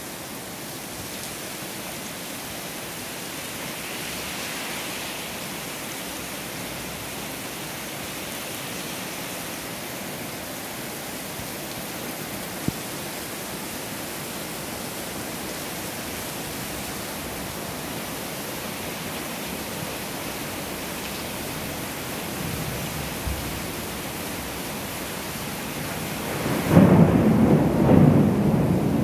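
Steady rain falling on a street. Near the end a loud rumble of thunder rolls in.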